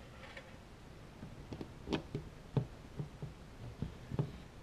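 Handling noise from a handheld camera: irregular soft knocks and clicks, about a dozen, the loudest two coming about two and two and a half seconds in.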